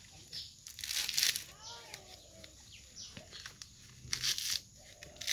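Fibrous husk of a mature coconut being torn apart by hand: several short, noisy rips of tough fibre, the strongest about a second in and near the end.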